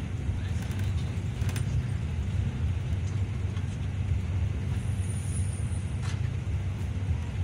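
Yutong bus riding along a road, heard from inside the cabin: a steady low engine and road rumble, with a few faint light rattles.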